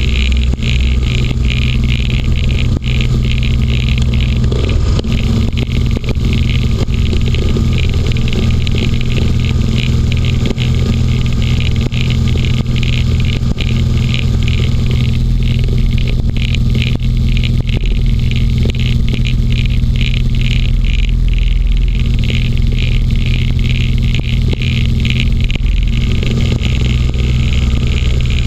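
Inflatable hovercraft's engine and caged propeller running steadily at low speed, a loud, even drone with a fast flutter over it.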